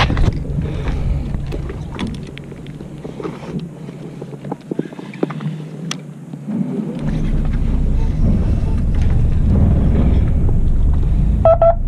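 Wind rumbling on the microphone aboard a fishing boat. The rumble drops away for a few seconds and comes back stronger about seven seconds in, with scattered small clicks and knocks and a brief high note near the end.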